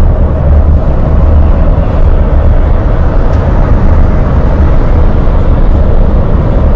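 Steady road and tyre rumble inside the cab of a fully electric refuse truck cruising at highway speed, with no diesel engine note under it.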